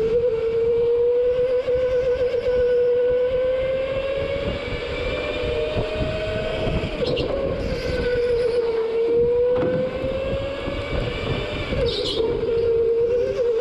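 Go-kart engine running hard under load, its pitch rising and falling gently a few times as the kart speeds up and lifts for corners.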